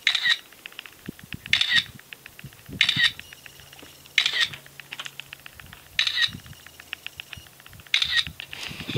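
Phone camera shutter sound going off six times, one to two seconds apart, as photos are taken.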